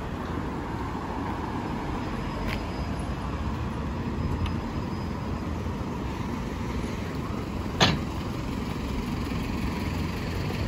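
Road traffic passing on a multi-lane street: a steady rumble of car and truck engines and tyres. A single sharp click about eight seconds in.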